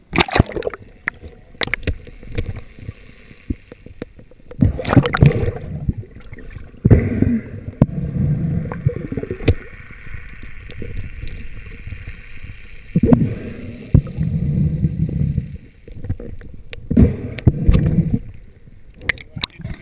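Muffled water sound heard from underwater: a splash as it goes under, then surges of rushing, gurgling water every few seconds as the diver swims with a speared fish. A faint steady high hum runs under it for several seconds in the middle.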